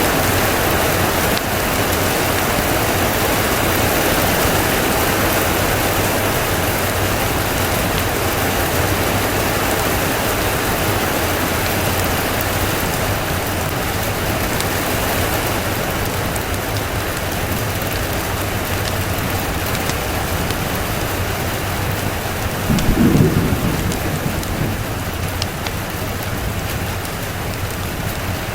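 Steady rain, an even hiss throughout, with one brief low rumble of thunder about 23 seconds in.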